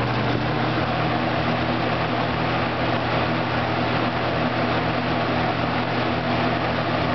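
Toastmaster 4437 20-inch box fan running on its high setting: a steady motor hum under an even rush of air from the blades.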